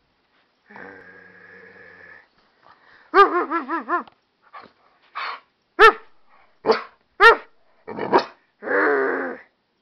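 Amstaff–pit bull mix dog vocalizing in a string of odd sounds: a wavering, warbling yowl, then several short sharp barks, then rougher growly barks near the end.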